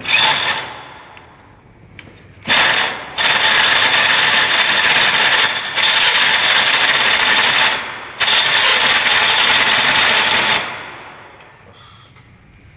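Corded electric drill running in several runs of a few seconds, with a steady whine, its bit boring into the inside of a motorcycle's chrome muffler to hollow out the baffle. It stops near the end.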